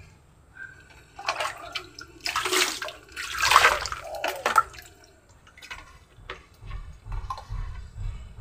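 Water sloshing and pouring as a plastic scoop is dipped into a basin and emptied, a few splashy pours over about three seconds, then quieter knocks of the container being handled.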